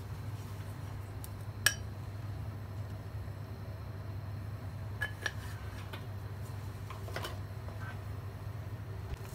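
A few short metallic clinks as salt and pepper are shaken from small spice jars over a pan of cream sauce; the loudest is about a second and a half in, and it rings briefly. Under them runs a steady low hum.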